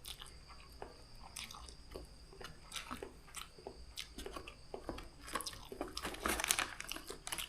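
Close-up eating sounds: slurping and chewing of spicy noodles, with irregular wet clicks and crunches, busiest and loudest near the end.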